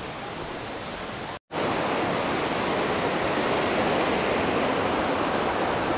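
Cicadas sounding on one steady high tone over a soft background hiss; then, after a cut about a second and a half in, the louder, steady rush of a waterfall's running water.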